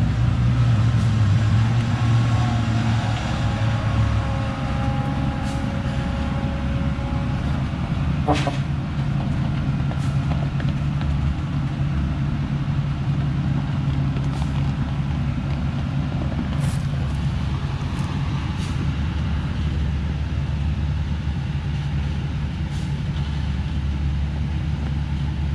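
Engine of a truck loaded with acacia logs labouring up a steep, muddy slope: a steady low drone under heavy load, with a faint higher whine over the first several seconds. A single sharp click about eight seconds in.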